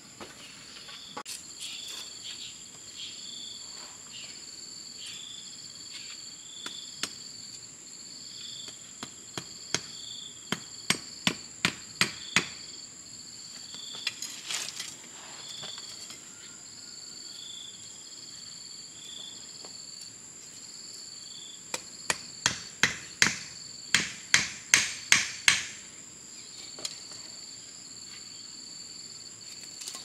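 Insects chirping steadily throughout, with two runs of rapid sharp hammer strikes, about eight near the middle and about ten in the second half, coming roughly three a second.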